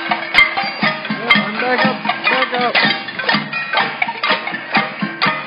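Many pots and pans being banged by a marching crowd: a dense, irregular metallic clanging with ringing tones.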